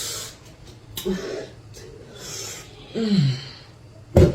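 A person eating amala and soup close to the microphone: wet chewing and mouth noises with breathing. There is a short falling hum about three seconds in and a heavy thump near the end.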